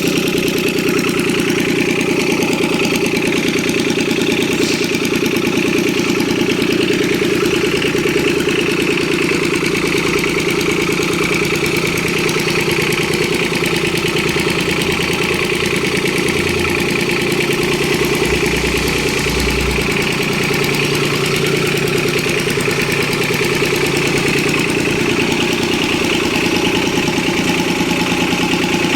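Kubota B1500 compact tractor's small diesel engine running steadily at idle.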